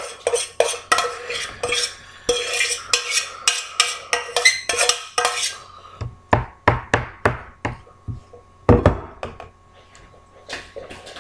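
Kitchen clatter of dishes and metal utensils: quick clinks that ring briefly for the first half, then a run of separate, sharper knocks, the loudest a little after three quarters of the way through.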